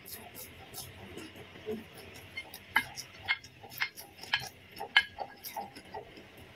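Close-up chewing of raw cucumber: a run of crisp crunches about twice a second in the middle, softer mouth sounds before and after.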